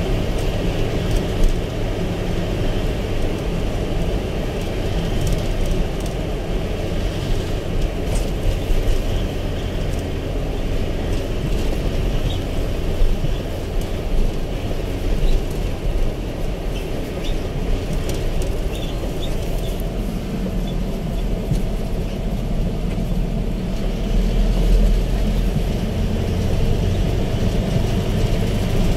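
Steady engine and road noise of a moving vehicle heard from inside its cabin, mostly low in pitch and even throughout, growing slightly heavier in the low end in the last third.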